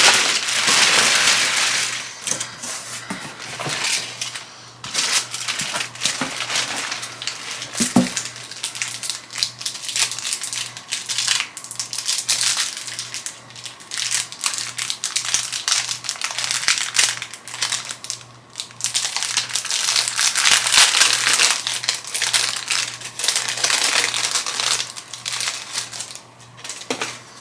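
Packaging being crumpled and crinkled by hand: a dense, irregular crackling that keeps going with brief pauses.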